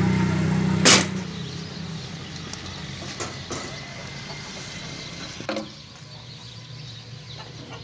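An engine runs steadily in the background, loud at first and dropping away after about a second. A loud sharp knock comes about a second in, and a second, duller knock at about five and a half seconds.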